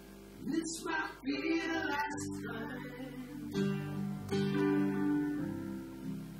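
Acoustic guitar strummed in ringing chords with a digital piano playing along, an instrumental passage of a song.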